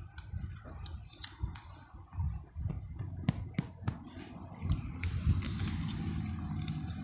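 A cat crunching dry kibble: scattered sharp crunches over a low, steady rumble.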